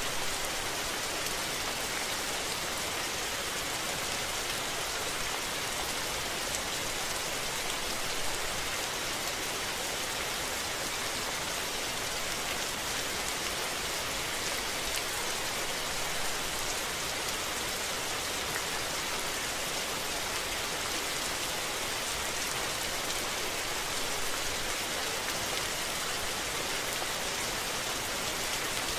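Steady rain falling, an even hiss of many drops that holds unchanged throughout.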